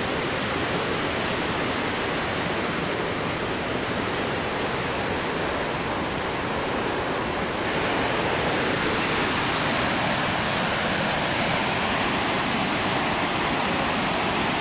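Victoria Falls roaring: a steady, loud rushing of falling water that grows brighter and a little louder about halfway through.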